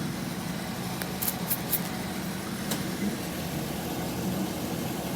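Engine idling steadily, its exhaust being used to pressurise a freshly welded exhaust pipe for a leak check. A few light clicks come between one and two seconds in, and another just before three seconds.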